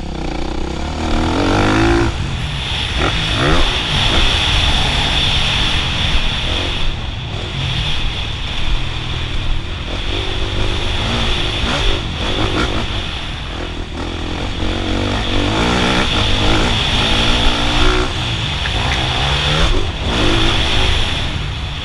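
Motocross bike engine revving hard and easing off, its pitch climbing and dropping again several times as the bike is ridden round the track.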